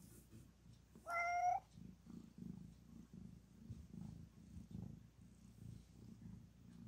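Domestic cat gives one short meow about a second in, then purrs low and steadily in pulses about twice a second.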